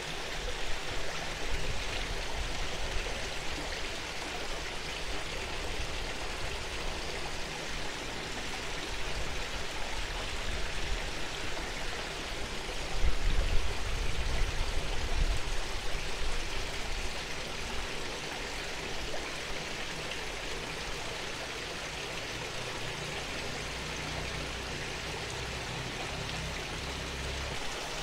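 Small garden waterfall splashing steadily into a koi pond, a continuous rush of falling water. A low rumble swells briefly about halfway through.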